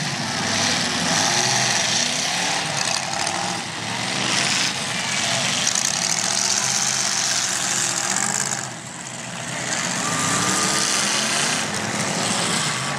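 Several demolition derby cars' engines running in the arena, idling and revving up and down, with a short lull about nine seconds in.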